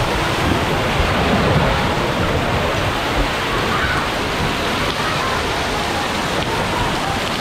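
Steady rushing and splashing of water as a rider slides down an open water slide and through the spraying runout into shallow pool water.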